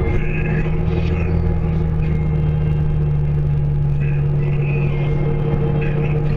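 Steady low hum and rumble of a running vehicle, unchanging throughout.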